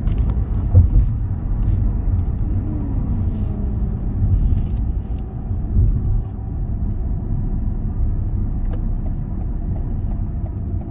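Steady low road and engine rumble of a car being driven, heard from inside the cabin, with a short louder thump about a second in.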